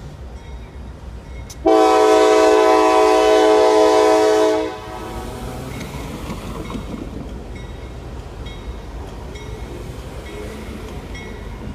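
Freight locomotive's Nathan K5LA air horn sounding one long, loud blast of about three seconds, its chord cutting off about five seconds in. Beneath it a low rumble, and a bell dinging at an even pace throughout.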